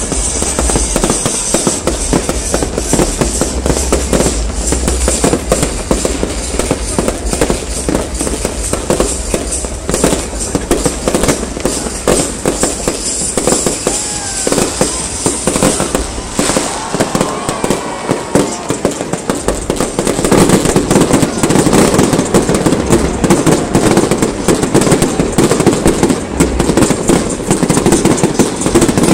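Fireworks going off in a dense, unbroken run of crackles and bangs, growing louder about two-thirds of the way through.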